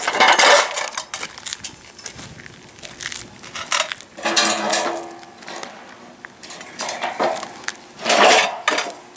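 Metal boat-hoist column and frame beam clanking and scraping together as they are stood up and fitted, in several separate bursts, some ringing briefly; the loudest come at the start and about eight seconds in.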